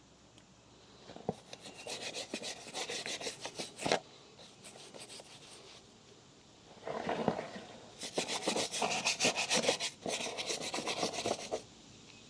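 Motorcycle drive chain being scrubbed during cleaning, with fast rasping back-and-forth strokes. There are two bouts: one from about a second in to four seconds, and a longer one from about seven seconds to near the end.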